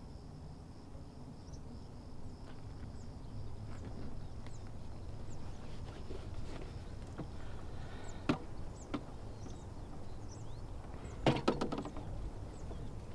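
Countryside ambience: a low steady background with faint short bird chirps throughout and a faint high steady whine that fades out in the first few seconds. Two sharp clicks come about eight and nine seconds in, and a quick cluster of louder knocks near the end is the loudest sound.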